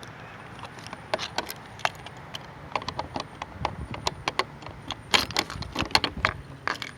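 Keys jangling and a key clicking and rattling in a shed lock as it is being unlocked: a run of irregular metallic clicks, busiest about five to six seconds in.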